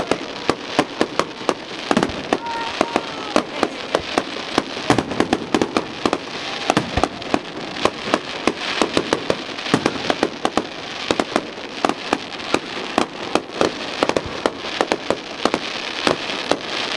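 Fireworks display: a dense barrage of sharp bangs and pops, several a second, as rockets rise and burst into glittering stars.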